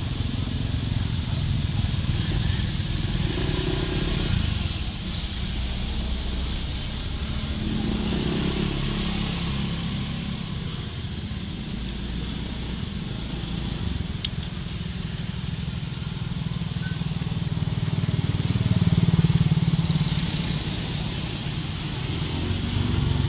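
Motorcycle engines running close by, a continuous low drone that rises and falls as they pass and swells loudest about nineteen seconds in.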